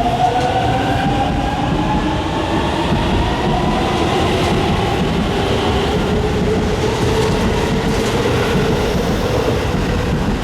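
Hokuso 7500 series electric train pulling out and accelerating. Its motor whine climbs slowly in pitch over the rumble and clatter of the wheels on the rails.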